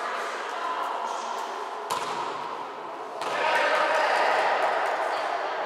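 A volleyball is struck once, sharply, about two seconds in, echoing in the sports hall. About a second later players and spectators break into shouting.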